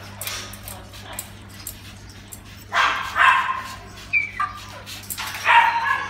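Male eclectus parrot giving two loud squawks, one about halfway through and one near the end, with a short, higher call between them, as it is misted with a pump spray bottle. Quick hisses of the spray run under the calls.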